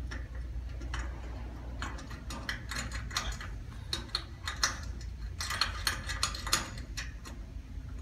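Quick runs of small metal clicks in two spells, about two and five seconds in, as a nut is put on and tightened on the threaded end of a carpet cutting machine's foot cable.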